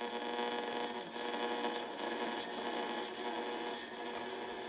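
Eddystone S750 dual-conversion communications receiver being tuned, its loudspeaker giving steady hum-like tones over static as the dial moves between signals.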